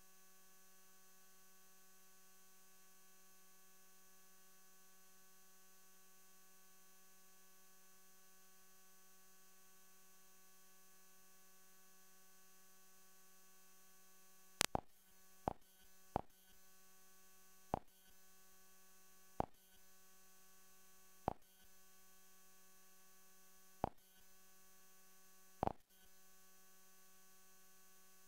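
Faint steady electrical hum, a low buzz with many overtones. From about halfway through, eight sharp clicks come at uneven intervals.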